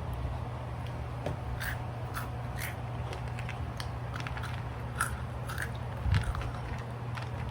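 Chewing crunchy food, most likely the chocolate cereal in milk: scattered short crunches and clicks over a steady low hum.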